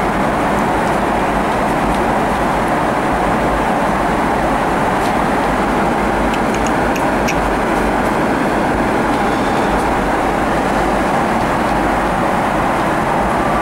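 Steady cabin noise of a Boeing 777-300ER in flight: the constant rush of airflow and engines. A few faint light clicks come about halfway through.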